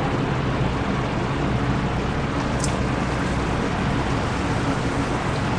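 Steady workshop background noise, a low hum under an even hiss. A small high click comes about two and a half seconds in.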